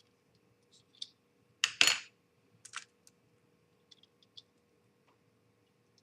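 Small hard model-kit parts clicking and knocking as they are handled and pushed into place: a few scattered clicks, the loudest a short double knock about two seconds in, over a faint steady hum.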